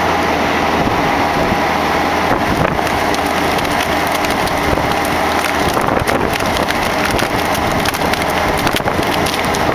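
A mini excavator's diesel engine runs steadily under hydraulic load while the rotating screw cone of a Black Splitter log splitter bores into a log. Cracking and crackling of the splitting wood picks up a few seconds in and is thickest in the second half.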